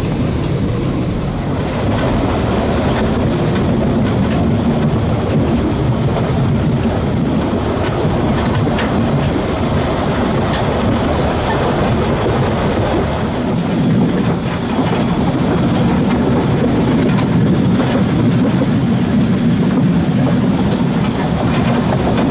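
750 mm narrow-gauge steam train on the move: a steady rumble of wheels on rails, with a few sharp clicks near the middle.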